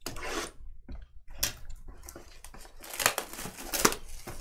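Trading-card box packaging being torn open and crinkled, with a few sharp crackles along the way.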